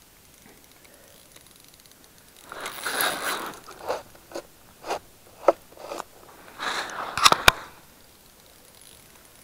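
Crunching and scraping in packed snow on lake ice: a rough stretch, then a row of short crunches about half a second apart, then two sharp clicks near the end.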